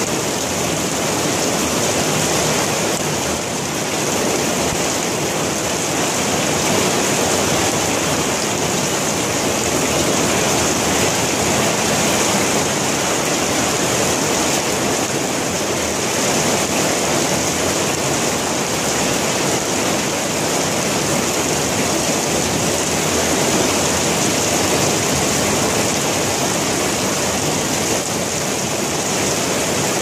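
Heavy southwest monsoon rain pouring down steadily: a dense, even hiss with small swells in loudness.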